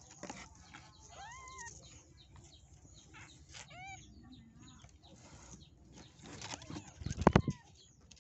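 Newborn kittens squeaking in short, high, arched mews, one drawn-out call and then a quick run of them, as they root for their mother's teats to nurse. Near the end there is a loud scuffle and knock.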